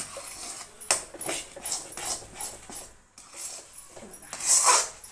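A spoon stirring and scraping through thick mung dal halwa in a metal pan, a string of short scrapes and knocks, with one louder, longer sound near the end. The paste is thickening and drying out as it cooks down.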